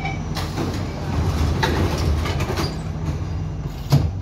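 Subway train doors closing: the beeping door-warning chime stops at the start, then the doors slide shut with knocks. A sharp thump about four seconds in is the loudest sound. The train's steady hum runs underneath.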